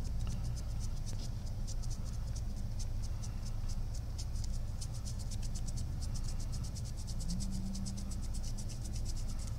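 Stiff paintbrush bristles scratching rapidly back and forth over an action figure's surface in dry-brushing strokes: a quick, dry run of several scratchy flicks a second, over a steady low hum.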